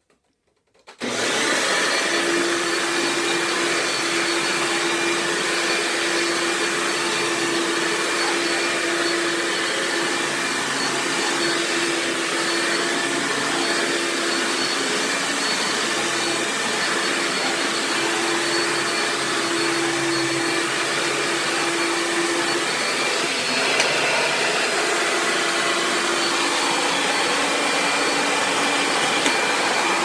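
Hoover Dimension direct-air upright vacuum switched on about a second in, its motor starting abruptly and then running steadily at an even pitch with a steady low hum.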